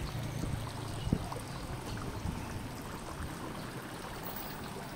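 Outdoor ambience by a pond: water trickling over a steady low hum that fades after about two seconds, with a single sharp click about a second in.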